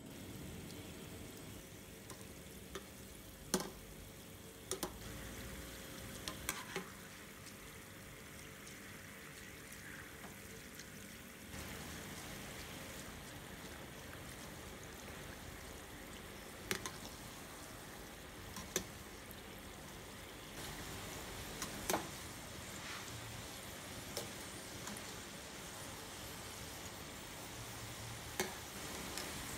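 Sesame-coated glutinous rice balls deep-frying in a saucepan of oil over medium heat, giving a steady bubbling sizzle as a wire skimmer turns them. A handful of sharp clicks break through it at intervals.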